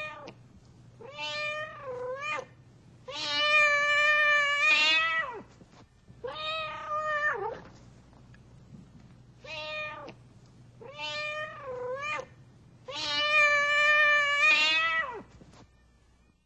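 A domestic cat meowing over and over: short calls and drawn-out meows about two seconds long that fall in pitch at the end, in a sequence that plays twice.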